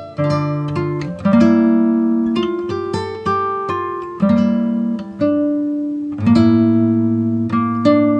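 Background music: an acoustic guitar picking out chords one note at a time, with the bass note changing every couple of seconds.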